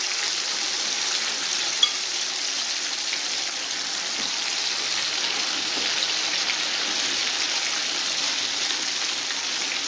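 Marinated chicken leg pieces frying in hot oil in a shallow pan, with a steady sizzle as more pieces are added, and one sharp click a little under two seconds in.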